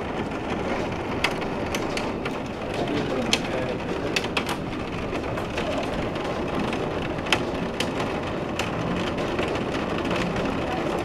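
Heavy rain pouring steadily, with scattered sharp taps of drops throughout.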